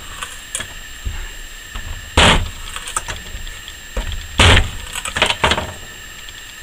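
Point of a zone-hardened ShKh15 steel knife blade stabbed into a wooden plank, a test of the tip's strength. Sharp wooden knocks, two loud ones about two and four and a half seconds in, with lighter ones between.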